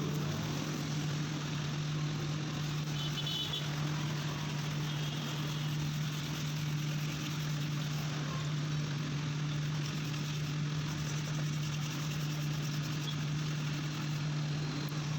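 Handheld electric buffing machine running steadily at a constant speed: a continuous motor hum with an even hiss on top.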